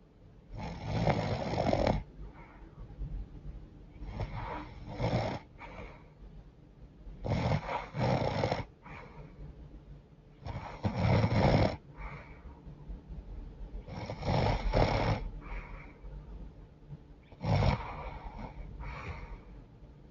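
A woman snoring in her sleep through a stuffy, runny nose: six loud snores, one every three to four seconds, each about a second and a half long, with quieter breaths between them.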